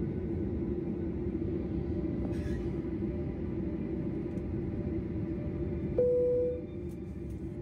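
Steady low rumble and hum of a parked Boeing 737-800's cabin at the gate, from its ventilation and air conditioning. About six seconds in, a single loud steady tone sounds for about half a second and cuts off, followed by a few faint clicks.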